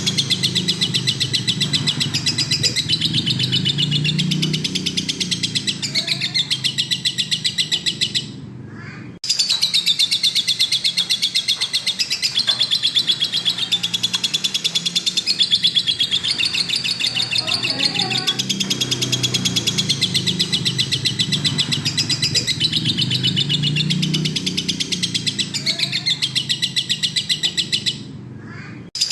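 Lovebird singing a long, fast, continuous chattering trill, broken twice by a pause of about a second.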